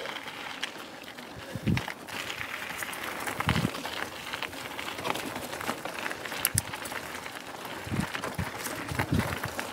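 Mountain bike rolling over a dirt single-track trail: steady tyre noise with rattling and clicking from the bike, and several heavier thumps as it hits bumps.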